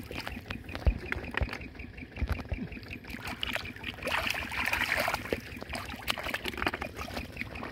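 Shallow muddy water splashing and trickling as hands rinse a freshwater mussel and feet wade through it, with many small scattered knocks and a fuller burst of splashing around the middle.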